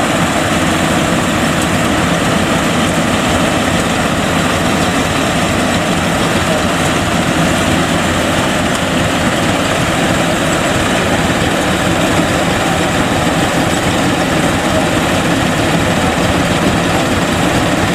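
Yanmar YH850 rice combine harvester running steadily under load, its diesel engine and cutting and threshing machinery making a loud, even drone as it harvests lodged rice.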